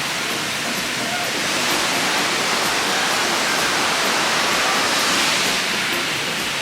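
Waterfall and creek water rushing in a steady, even roar, swelling a little louder for a few seconds in the middle.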